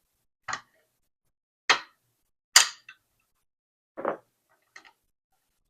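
Five separate metal clicks and knocks from a lever safe lock being worked by hand, its parts and key being lined up; the sharpest comes about two and a half seconds in, and the one about four seconds in is a duller knock.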